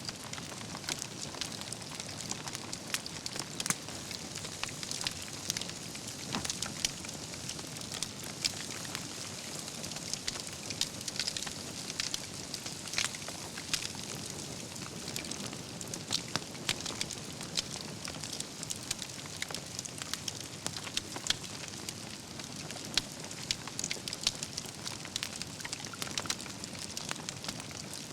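Wood campfire burning with a steady low rush of flames and frequent irregular sharp crackles and pops from the burning logs.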